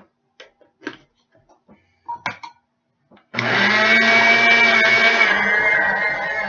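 A few light clicks and knocks, then a small electric blender switches on abruptly about halfway through. It runs steadily with a motor whine and a hiss, grinding granulated sugar down into powdered sugar. The hiss eases slightly after a couple of seconds.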